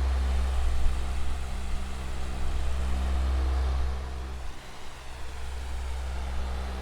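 Electric fan with metal blades running steadily: a low motor hum under an even rush of air. The low hum briefly weakens about two-thirds of the way through, then returns.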